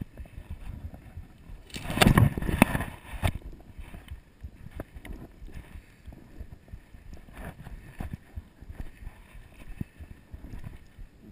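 Footsteps crunching and knocking on loose rock and gravel, with rustling from the body-worn camera. A louder rustling scrape comes about two seconds in and lasts a second or so.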